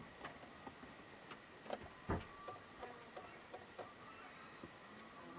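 Quiet background with a few faint scattered clicks and one louder knock about two seconds in. No starter cranking and no solenoid click are heard: the battery is completely flat.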